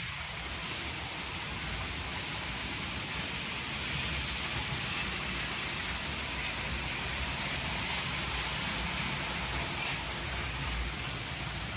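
Model trains running on the layout track: a steady rumble and hiss of motors and wheels on rail.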